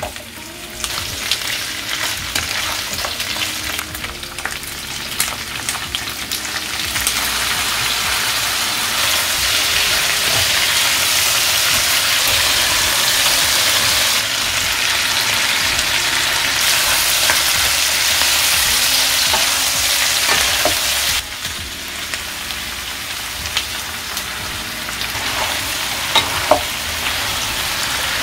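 Pork stir-fry sizzling in a hot nonstick frying pan as it is stirred. The sizzle grows louder about seven seconds in and falls back about twenty-one seconds in, with a couple of sharp clicks near the end.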